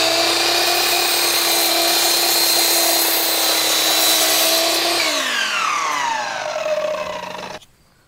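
Electric miter saw running at full speed with a steady high whine as its blade comes down on a live-edge Eastern White Cedar board. About five seconds in the trigger is released and the whine falls in pitch as the blade spins down. The sound cuts off abruptly near the end.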